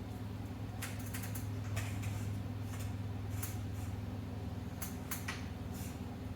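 Scattered light clicks and scrapes of curtain hardware being handled on a curtain rod while a curtain is hung, over a steady low hum.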